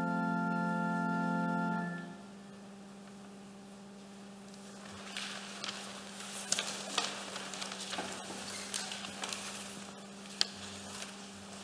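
The last held chord of a hymn, choir and organ, stops about two seconds in. Then the robed choir settles into their seats: rustling robes and paper, with small clicks and knocks of chairs, over a faint steady hum.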